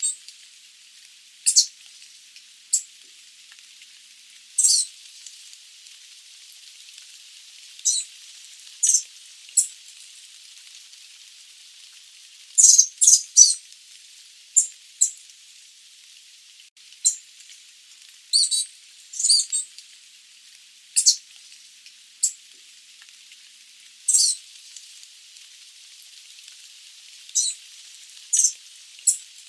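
Sooty babbler giving short, high-pitched chirps at irregular intervals, sometimes two or three in quick succession, over a faint hiss.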